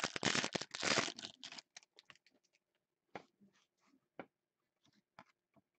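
Foil trading-card pack torn open and crinkled for about a second and a half, followed by scattered light clicks and rustles as the cards are slid out of the wrapper and handled.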